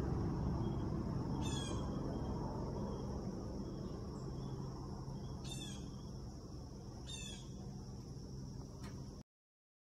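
Helicopter's low rotor-and-engine hum fading slowly into the distance, with a bird calling three times over it. The recording cuts off suddenly near the end.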